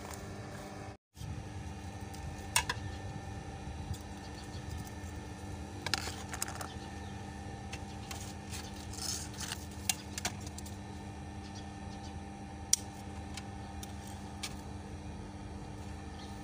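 Scattered light clicks and knocks of an aluminium step ladder being handled and climbed, over a steady low background hum. The sound cuts out completely for a moment about a second in.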